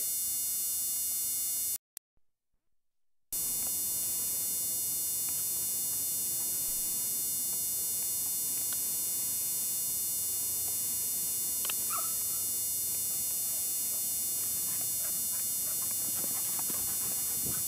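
Steady electrical mains hum and buzz with hiss on an old videotape soundtrack, cutting out completely for about a second and a half near the start. About twelve seconds in a dog gives one short yelp.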